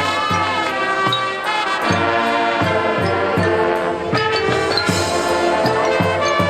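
High school marching band playing: brass holding sustained chords over a steady drum beat of about three strokes a second.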